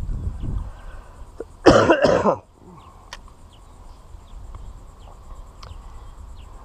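A person coughs once, close and loud, about two seconds in: a short harsh cough in two quick pulses, from someone with a cold going round.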